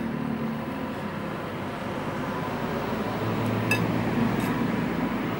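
Steady noise of road traffic going by, with one light clink of a metal spoon against a bowl about two-thirds of the way through.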